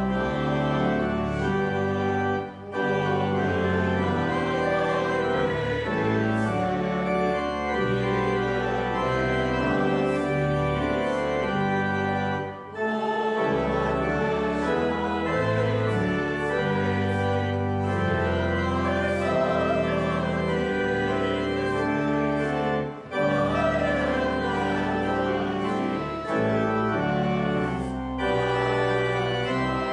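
Church organ playing sustained chords in phrases, with short breaks between phrases about every ten seconds.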